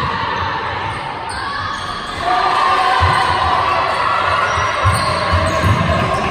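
A basketball being dribbled on a hardwood court, a run of dull thuds echoing in a large hall, over steady hall noise that grows louder about two seconds in.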